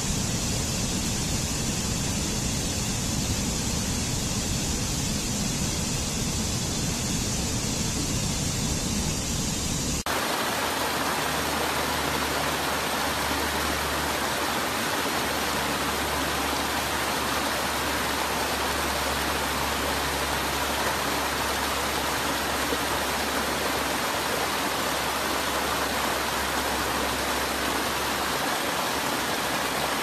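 Steady rushing water of a mountain stream cascading over boulders. About ten seconds in it cuts abruptly to a different stretch of water, a brook spilling over low rock ledges, with less low rumble and a more even hiss.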